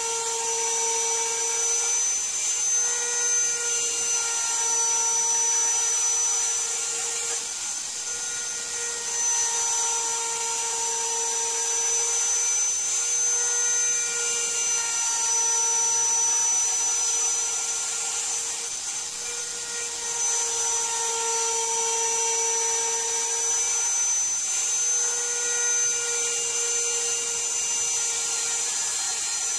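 Router spindle on an MPCNC machine running steadily with a high whine while a 1/4-inch end mill cuts a 10 mm deep pocket in Iroko hardwood. Under it, lower tones shift and swap every few seconds as the machine changes direction along its toolpath.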